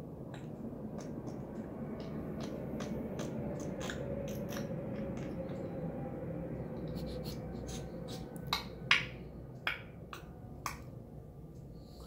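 African grey parrot sniffing like a dog: four short, sharp sniffs in quick succession about two-thirds of the way through, over steady low background noise with scattered faint clicks.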